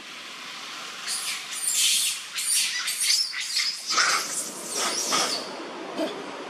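Infant macaque screaming: a rapid run of shrill, high cries that starts about a second in and stops a little after five seconds. These are the distress cries of a baby frightened by a big male macaque.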